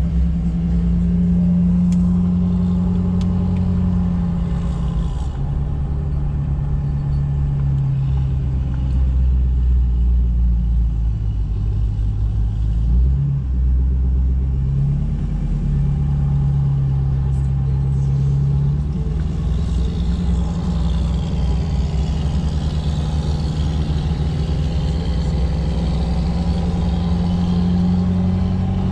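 Truck engine running steadily on the road. Its pitch steps down about five seconds in, dips and comes back up a little past the middle, then climbs slowly through the last third.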